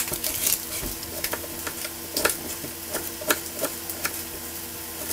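Food sizzling in a frying pan: a steady hiss broken by many small sharp crackles and clicks.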